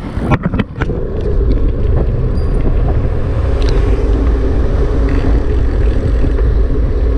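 A vehicle travelling along a road: a steady, loud low rumble that sets in after a few clicks and knocks in the first second.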